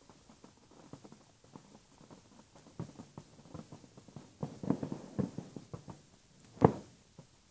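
Distant firework shells bursting as scattered dull pops and thuds, with a denser cluster about four and a half to five seconds in and one louder bang near the end.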